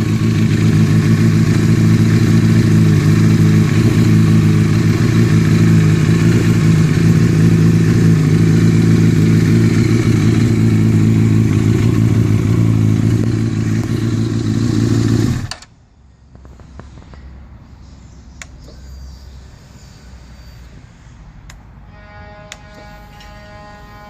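2005 Honda CBR1000RR's inline-four engine idling steadily, now starting and running after a burnt 12-volt wire at its harness box was repaired. The engine cuts off abruptly about 15 seconds in. About two seconds before the end, a faint steady whine begins.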